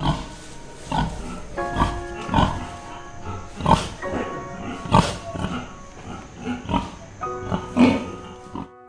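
An animal making about a dozen short, irregularly spaced calls over background music with held notes.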